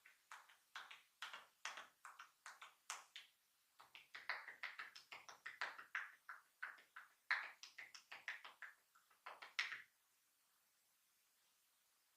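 Hands tapping and slapping on skin during a massage: about two slaps a second at first, then a faster run of quick pats from about four seconds in, stopping shortly before the end.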